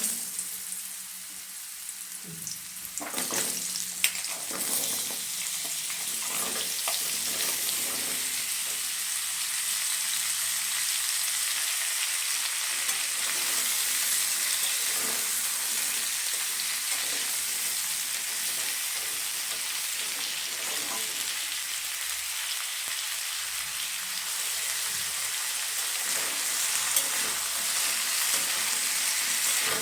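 Chopped vegetables (pumpkin, potato, carrot) sizzling as they fry in hot oil in a kadhai, stirred now and then. The sizzle grows louder about three seconds in, with a few knocks of the spoon against the pan over the first several seconds.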